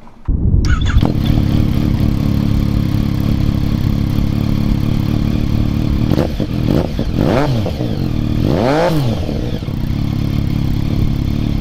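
Yamaha FZ-09's three-cylinder engine, on a full aftermarket exhaust and with its smog air-injection system blocked off, running at idle; it comes in suddenly, and the throttle is blipped three times, the revs rising and falling each time.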